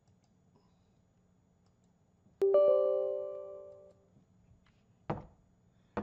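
A single electronic chime, a chord of several tones, sounds suddenly about two and a half seconds in and dies away over about a second and a half. A single click follows about five seconds in.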